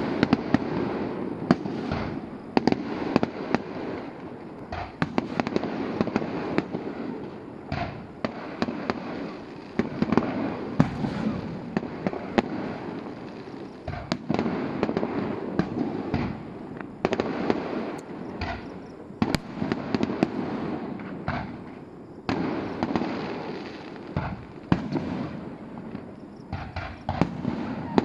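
Fireworks going off: a dense, unbroken crackle of rapid pops with frequent louder sharp bangs throughout.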